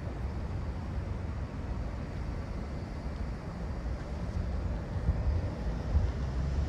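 Low, steady rumble of wind on the microphone mixed with road-vehicle engines, with an engine hum growing louder near the end.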